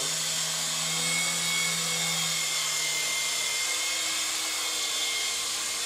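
Syma S109G Beast coaxial toy RC helicopter in flight, its small electric motors and twin rotors making a steady whir. The pitch shifts up a little under four seconds in as the throttle changes.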